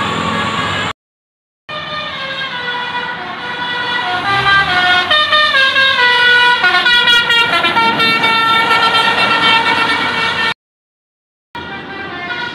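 Tour bus's Basuri 'telolet' multi-tone air horn playing a tune: several horn tones sounding together, stepping from note to note, then held on one long chord. The sound drops out abruptly about a second in and again near the end.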